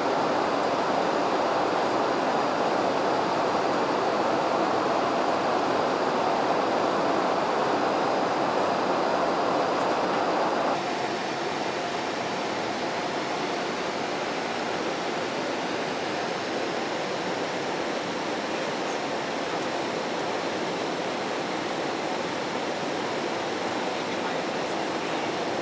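Steady cabin noise of a Boeing 787-8 airliner in flight: an even hiss of engine and airflow noise through the fuselage. It drops a step in level suddenly about eleven seconds in.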